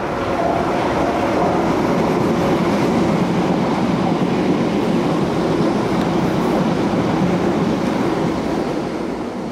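London Underground Piccadilly line 1973 Stock deep-tube train running fast through a station without stopping: steady wheel-on-rail running noise that swells as the train arrives alongside and fades near the end as it pulls away.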